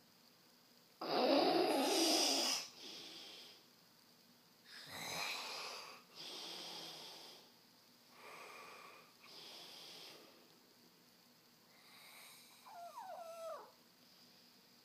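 A sleeper snoring loudly: a harsh snore about a second in, followed by quieter rasping breaths in and out every second or two, and a wheezy whistling breath near the end.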